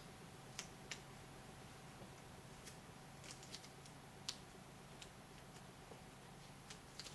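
Near silence with a faint steady room hum and scattered soft ticks and rustles from gloved hands handling a gauze dressing, the clearest tick about four seconds in.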